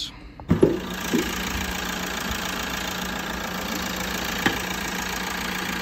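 Fiat 1.3 Multijet diesel engine idling steadily in the open engine bay, its EGR valve and intake freshly cleaned. A couple of sharp knocks come about half a second and a second in, and a click near the end.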